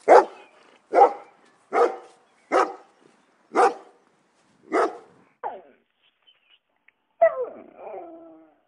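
A dog barking, seven sharp barks about once a second, the last one weaker. About seven seconds in comes a longer whining call of about a second that falls in pitch.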